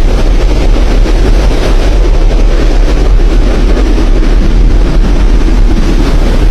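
Floodwater rushing, a loud steady noise with a deep constant rumble underneath.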